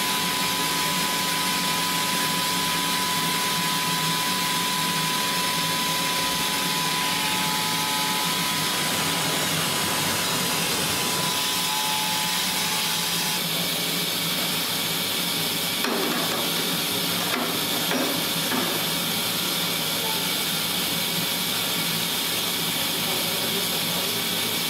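Studer S31 cylindrical grinding machine at work on a steel bearing ring: a steady hiss of coolant spray and the spinning grinding wheel. A thin, high whine fades out about halfway through, and a few faint clicks come about two-thirds of the way in.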